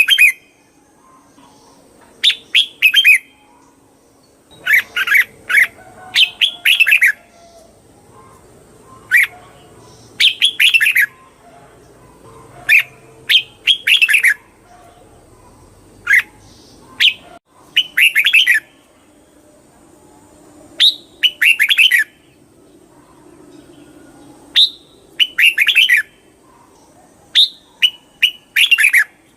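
Red-whiskered bulbul singing: loud, short, warbling phrases of a few quick notes, repeated every two to three seconds.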